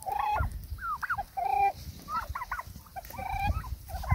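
Domestic turkeys calling: a quick string of short pitched calls and clucks, a few of them held for a moment.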